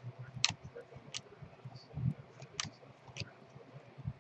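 Baseball trading cards being handled and flipped, giving about four sharp clicks spread out over soft, low knocks.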